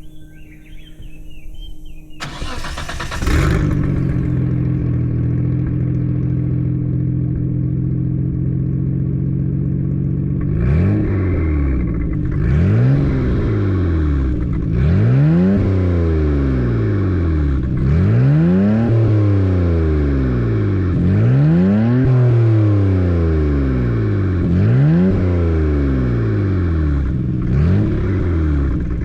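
Nissan Skyline GT-R BNR32's RB26DETT twin-turbo straight-six starts about two seconds in and settles to idle. From about ten seconds in it is revved again and again, a rise and fall every two to three seconds, through a Tomei Expreme Ti titanium exhaust fitted with an inner silencer.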